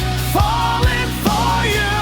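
Rock music instrumental passage: a sustained lead melody over bass and drums, with a drum beat landing about twice a second.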